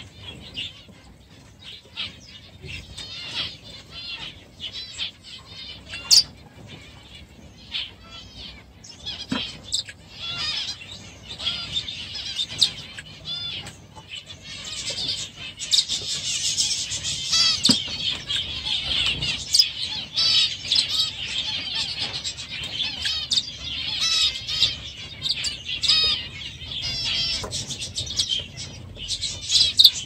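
Many small aviary birds chirping and calling over one another, the chatter growing busier and louder about halfway through.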